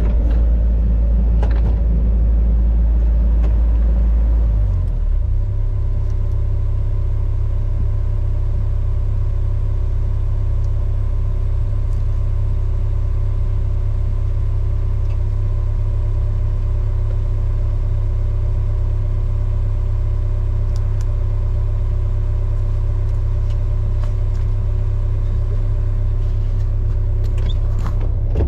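Diesel engine of a John Deere 60G mini excavator running steadily. Its note shifts about five seconds in, then holds steady.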